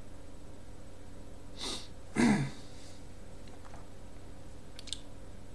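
A man's nasal breath sounds: a quick sniff, then a louder short snort with a low falling pitch. A faint click follows near the end over a steady low hum.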